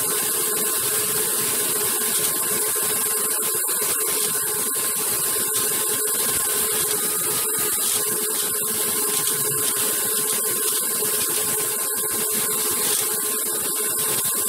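Lego two-cylinder vacuum engine running steadily in third gear through a Lego three-speed manual transmission: a continuous mechanical whir over the steady drone of the vacuum cleaner suction that drives it.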